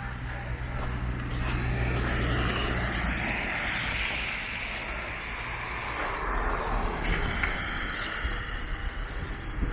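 Street traffic: a vehicle driving past, its tyre and engine noise swelling and then fading, with more traffic coming up near the end.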